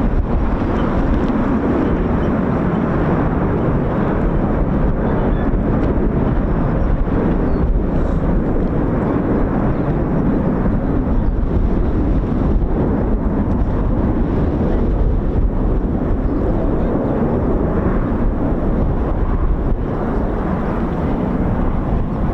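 Wind buffeting the microphone, a steady rushing noise, mixed with the jet engine noise of the Red Arrows' BAE Hawk T1 jets.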